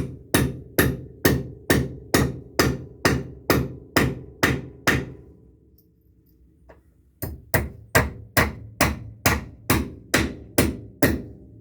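Hand hammer striking steadily, about two blows a second, fixing a timber support board for a deck frame; the blows stop for about two seconds midway, then carry on at the same pace.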